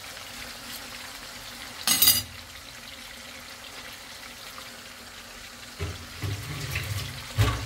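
Boneless seasoned chicken thighs sizzling in hot oil in a frying pan, a steady hiss with a short loud crackle about two seconds in. Low knocks and handling noise near the end.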